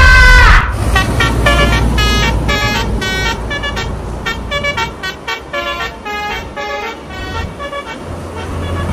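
Bus telolet horn: a long held blast that cuts off about half a second in, then a quick run of short toots at changing pitches playing a tune, over a low engine rumble that fades about halfway through.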